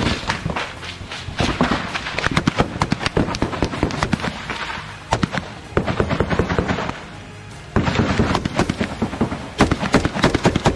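Machine-gun fire in rapid bursts of shots, with short lulls about halfway through and the densest fire near the end.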